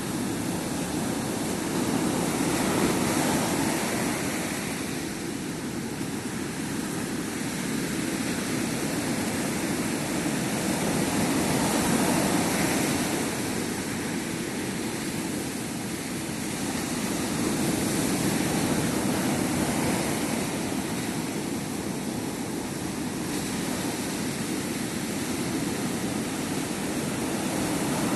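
Sea surf washing onto a beach: a steady rush of water that swells and eases every several seconds.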